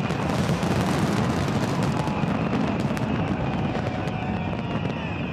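Fireworks display: a continuous deep rumble of bursting shells with many sharp cracks and crackles over it. The cracks thin out and the rumble eases off near the end as the display winds down.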